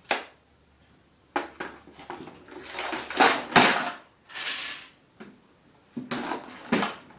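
Hard plastic and metal objects clattering and rattling as a plastic toolbox is handled and rummaged through. There is a sharp click at the start, then a run of rattling bursts, a short pause, and more clatter near the end.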